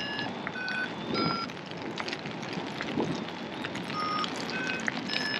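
Paragliding variometer beeping: short electronic beeps at changing pitches, a few a second, over steady wind noise.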